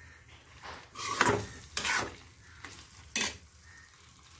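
A steel spoon stirring a thick, bubbling curry in a kadhai, scraping against the pan about three times over a low sizzle.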